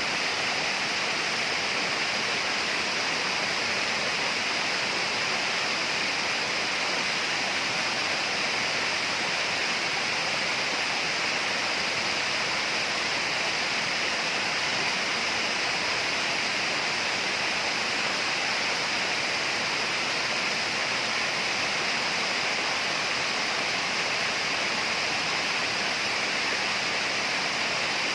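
Steady rushing water in tropical rainforest ambience, an unbroken even hiss with no pauses, with a brighter high band running through it.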